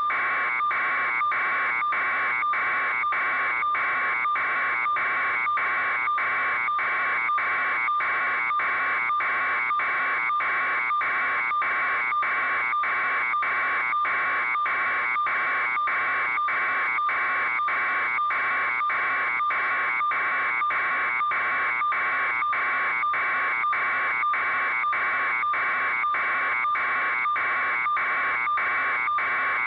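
An electronic alarm buzzing in rapid, evenly spaced pulses, unchanging and without a break.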